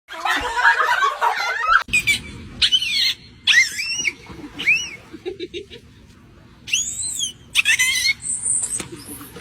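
An animal making a noisy chattering burst, then a series of short, high calls that each rise and fall in pitch.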